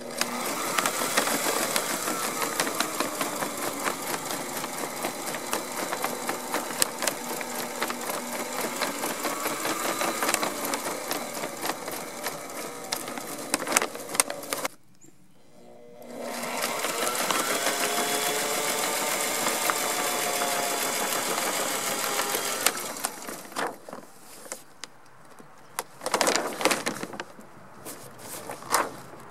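Sailrite LSZ1 zigzag walking-foot sewing machine stitching a zigzag seam through monofilm sail layers, its motor speeding up and slowing as it runs. It stops for about a second roughly halfway, runs again, then sews in short bursts near the end.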